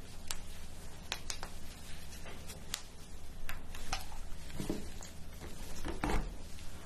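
Cooked king crab shell cracking and snapping in gloved hands as the claw is broken open and the meat pulled out: a run of sharp cracks, then two duller low thuds in the second half, the louder one near the end, over a faint low hum.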